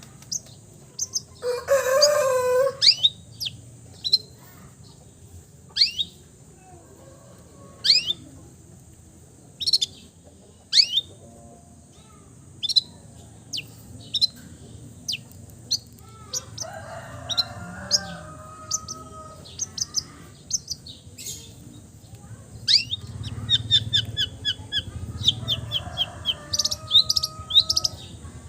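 Long-tailed shrike (cendet) singing: a string of sharp, falling high whistled notes and mimicked calls of other birds. A loud harsh call comes about two seconds in, and a fast run of repeated high notes near the end.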